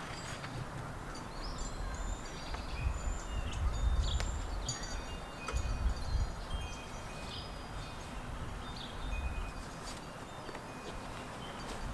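Wind buffeting the microphone in uneven gusts, strongest about four and six seconds in, with faint high tinkling tones scattered through it.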